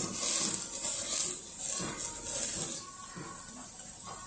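Background music with a steady, hissy, shaker-like percussion beat of about two strokes a second, which drops away about three seconds in.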